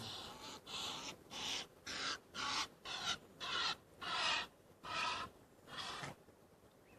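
A bird calling over and over with a harsh, rasping call, about two calls a second, stopping shortly before the end.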